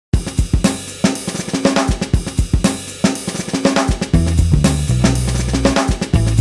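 Background music: a drum-kit beat with snare, hi-hat and cymbal hits, joined by a steady bass line about four seconds in.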